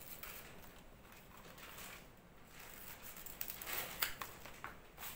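Scissors cutting a fresh banana leaf, a few short crisp snips among soft leaf rustling; the loudest cut comes about four seconds in.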